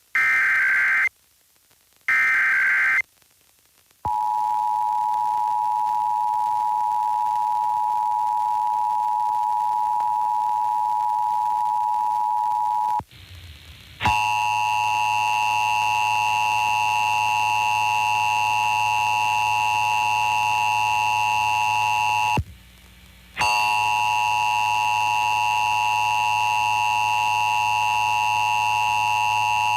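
Emergency Alert System required monthly test on a radio broadcast. Two one-second bursts of the SAME digital header data end the header, then the steady two-tone EAS attention signal holds for about nine seconds. After a brief break a second, louder run of the attention tone with added overtones and a low hum begins, cut by a short gap about two-thirds of the way in.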